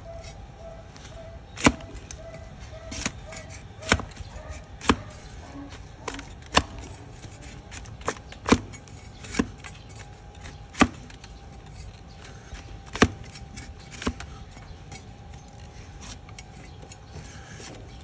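A large flat hoof-trimming blade chopping down through a donkey's hoof horn onto a wooden block: about a dozen sharp knocks at uneven intervals, mostly one to two seconds apart, thinning out near the end.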